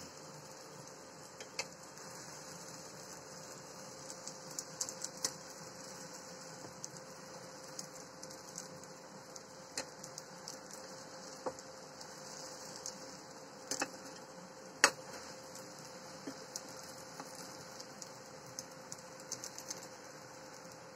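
Aloo paratha sizzling faintly in an oiled pan, with scattered crackles and clicks as a spatula presses it, the loudest snap about fifteen seconds in. A steady hum runs underneath.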